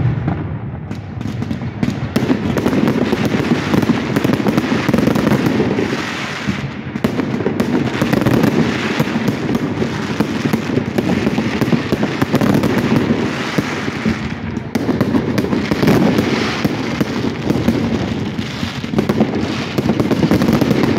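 Aerial fireworks display firing continuously: a dense, unbroken run of loud bangs from shells and multi-shot batteries bursting overhead.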